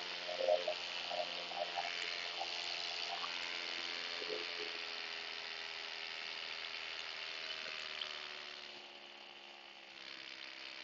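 A paramotor's engine and propeller running with a steady, high drone. One tone sinks slowly in pitch during the second half, and the sound dips in level near the end.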